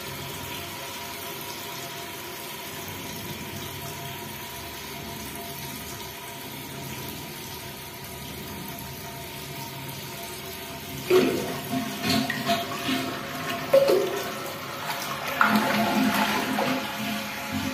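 Toilet cistern refilling: water running into the tank with a steady hiss and faint whine from the fill valve. About 11 seconds in, louder irregular sloshing and several knocks as a hand works inside the tank.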